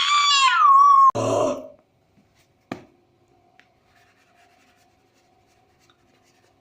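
A child's high-pitched squeal that glides down and stops about a second in, followed by a short, lower cough-like vocal sound. Then a single click, and quiet room tone with a faint steady hum.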